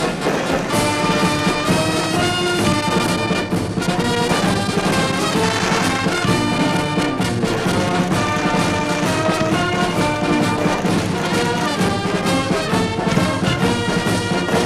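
Orchestral music with prominent brass, playing steadily and loudly.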